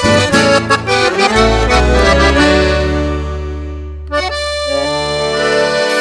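A chamamé band led by button accordion, with guitar and bass. It plays a run of quick notes, then long held chords: one fades out and a new one sounds about four seconds in.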